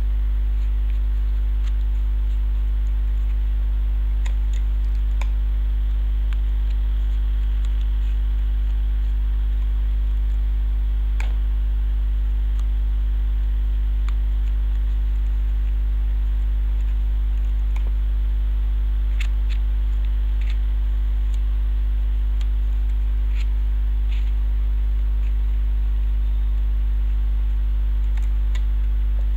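Steady, loud electrical mains hum, with a few faint clicks of cello tape and cardboard being handled scattered through it.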